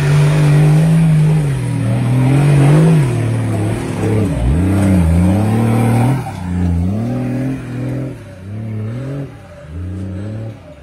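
Nissan Patrol 4x4 engine revving hard under load on a muddy forest climb. It is held high for the first few seconds, then the revs fall and surge again repeatedly as the driver works the throttle.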